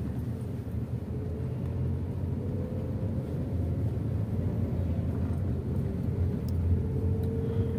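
A car driving, heard from inside the cabin: a steady low rumble of engine and tyre noise, with a faint engine note that rises slowly.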